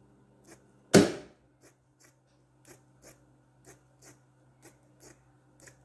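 Scissors snipping in short, faint cuts, about two a second, trimming the loose edges off a sewn strip of red bias-cut fabric. A single sharp knock sounds about a second in, and a steady low hum runs underneath.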